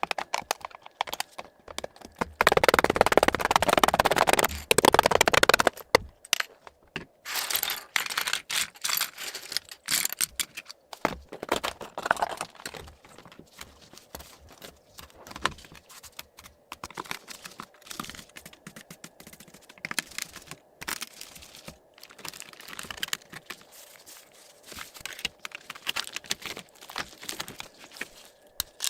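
Computer keyboard being handled while it is cleaned: scattered clicks and rattles of keys and plastic. A few seconds in comes a dense stretch of rubbing noise lasting about three seconds.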